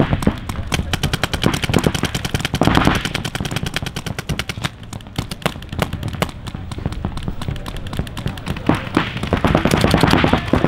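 Paintball markers firing in rapid strings, many shots a second, overlapping from more than one gun.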